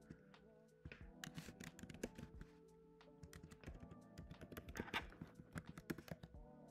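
Computer keyboard being typed on, quick irregular key clicks, over quiet background music.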